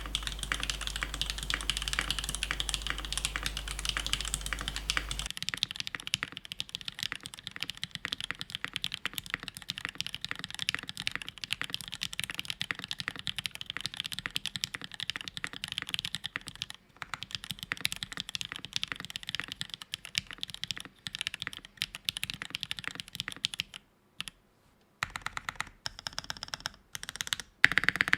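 Fast typing on an Iron165 R2 gasket-mount keyboard with an aluminium plate, lubed Kailh MX Cream linear switches and GMK keycaps: a steady rush of keystroke clicks and clacks, with a couple of short pauses near the end.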